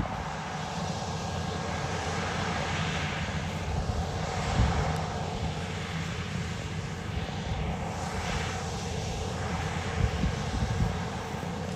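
Engine of a New Holland T9.670 HD four-wheel-drive tractor running steadily under load while pulling an air drill, a continuous deep drone with a rushing noise above it that slowly shifts, swelling a little twice.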